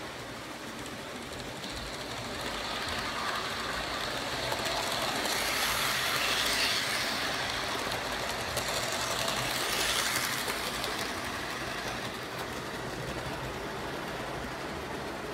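HO scale model train running past along the track. It grows louder from about two seconds in, is loudest between six and ten seconds, and fades away by about twelve seconds as it moves off.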